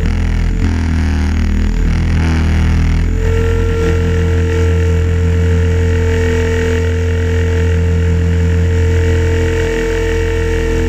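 Onboard sound of an Align T-Rex 550 electric RC helicopter in flight: motor and gear whine over the main rotor's chop. The pitch wavers for about the first three seconds as it rolls through a flip, then holds steady.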